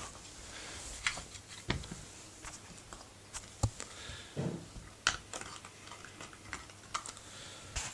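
Puppy gnawing a hard churpi cheese dog chew and a pig's ear: scattered, irregular clicks and knocks of teeth and chew, with a short low sound about four and a half seconds in.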